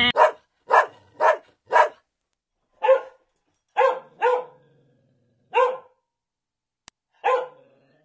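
Puppy barking: about nine short, high barks at uneven intervals.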